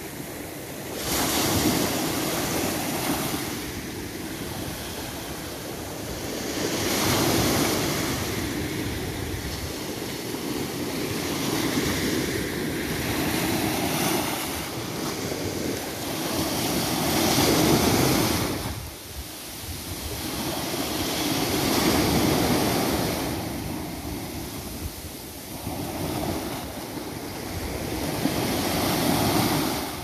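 Small sea waves breaking and washing up a sandy shore, the surf swelling and fading every few seconds.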